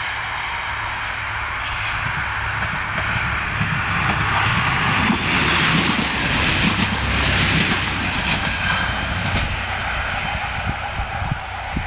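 Red diesel railcar passing close by on a single-track branch line: engine running and wheels rolling on the rails, growing louder to a peak about five to eight seconds in, then fading as it moves away. A few sharp clicks near the end.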